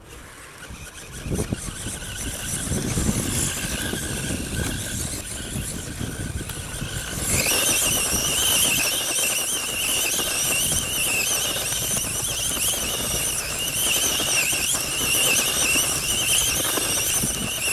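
Small radio-controlled off-road car driving and spinning on loose dirt and gravel. Its motor gives a high, wavering whine that grows much louder about seven seconds in, over the scrabbling noise of its tyres in the gravel.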